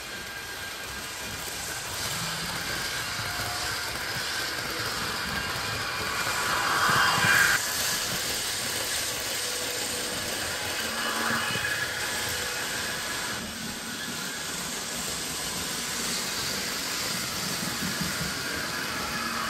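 H0-scale Trix model train running on the layout track: a steady motor hum and wheel rumble. It swells louder about seven seconds in, then drops off suddenly.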